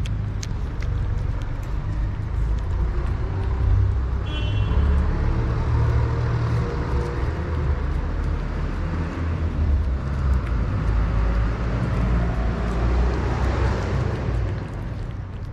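Low rumble of road traffic, with a motor vehicle passing close and at its loudest a second or two before the end. Faint clicks of cats eating wet food close by come near the start and the end.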